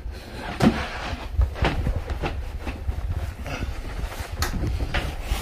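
Irregular soft knocks and rustling as foam bed cushions in a boat's cabin are gripped and shifted by hand, over a steady low rumble.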